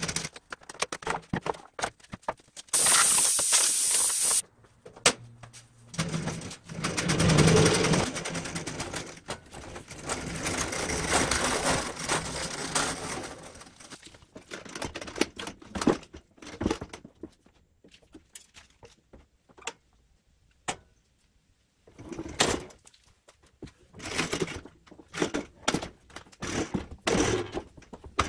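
DeWalt planer on its wheeled mobile base being rolled and shoved along, the casters rumbling over the floor, with repeated clunks and knocks. A loud hiss lasts about a second and a half a few seconds in.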